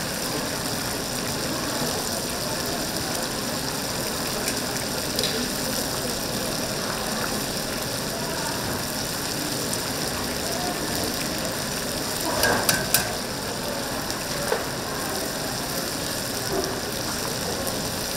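Whole chickens deep-frying in hot oil, a steady sizzle. A brief clatter comes about two-thirds of the way through, and a single knock follows a couple of seconds later.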